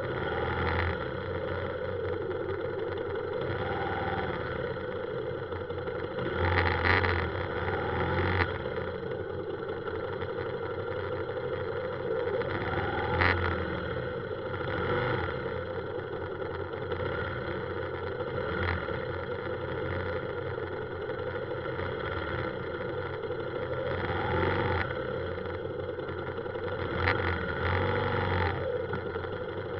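Motorbike engines running at low speed in a stop-and-go traffic jam, a steady drone with a few brief louder noises now and then.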